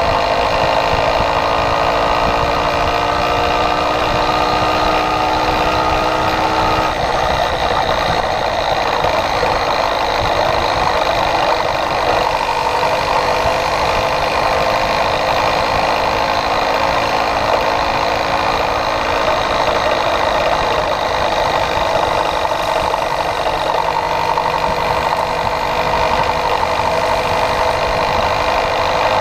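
Small motorized-bicycle engine running under way, its pitch climbing gradually over the first several seconds, then running steadily, with wind rushing across the microphone.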